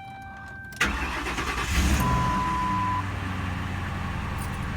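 Ford Crown Victoria's 4.6-litre modular V8 cold-started: the starter cranks about a second in, the engine catches quickly and flares up, then settles to a steady idle about three seconds in.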